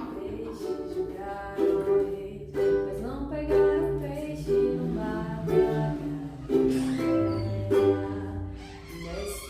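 Ukulele strummed in chords, about one strum a second, with a voice singing along low beneath it.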